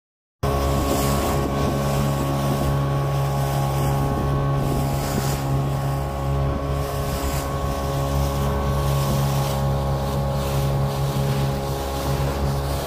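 Small wooden fishing boat's motor running steadily at constant speed while under way. Wind buffets the microphone, and water rushes past the hull.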